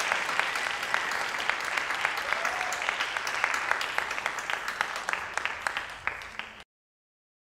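Audience applauding in a theatre. The clapping slowly dies down and cuts off suddenly near the end.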